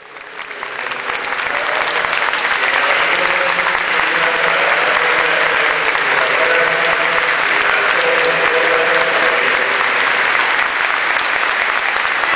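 Large crowd applauding steadily, fading in over the first second or so.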